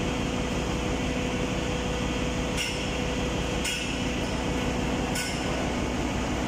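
Steady engine-room machinery noise with a constant hum and a steady tone. Three sharp metallic clinks sound through it, about two and a half seconds in, a second later and near five seconds, while the exhaust valve is being lifted.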